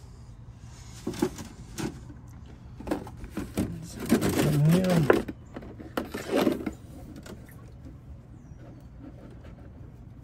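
Clear plastic bleeder hose being handled and pushed onto a truck's rear brake bleeder valve: a string of clicks and rubbing knocks, with a louder stretch of scraping and a brief squeak about four to five seconds in.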